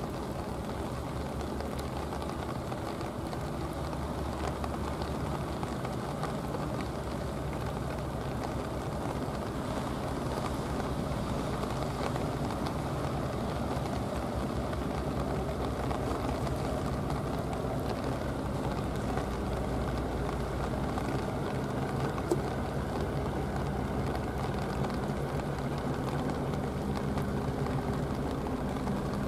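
Tugboat's diesel engine running steadily as it cruises past, a low drone with an even beat. A single sharp click about three-quarters of the way through.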